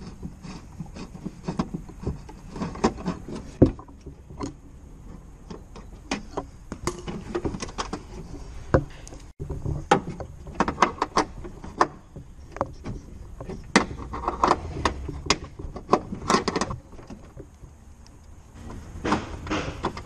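Ratchet wrench with a 10mm socket clicking as it works a fastener inside a car door, amid irregular metallic clanks and taps of tools against the door's sheet metal.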